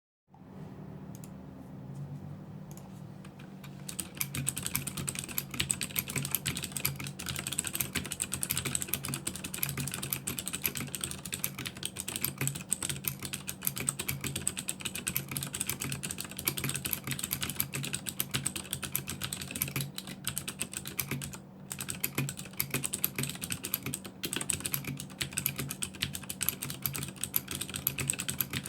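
Fast typing on a Das Keyboard 4 Pro mechanical keyboard with Cherry MX Blue switches dampened by O-rings: a rapid, continuous clatter of clicky keystrokes. The clatter picks up about four seconds in and pauses briefly a couple of times.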